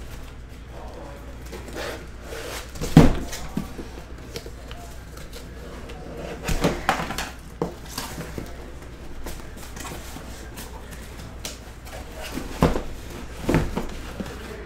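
A large cardboard case of trading-card boxes being manhandled on a table: several dull thumps and knocks as it is set down and shifted, the loudest about three seconds in and more near the end, with cardboard scraping in between.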